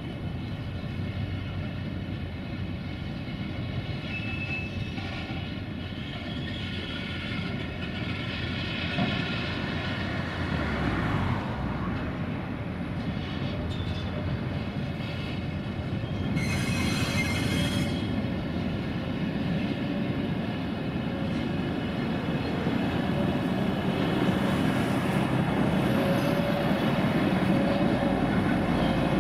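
Double-deck car-carrier freight wagons rolling past: a steady rumble of steel wheels on rail, with faint high squealing tones from the wheels. A brief hiss about 17 seconds in.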